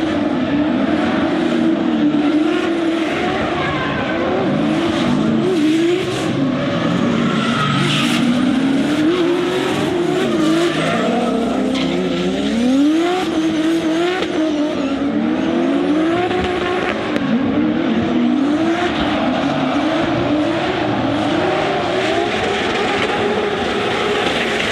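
Drift car engine revving up and down repeatedly as the throttle is worked, over a steady screech of sliding tyres.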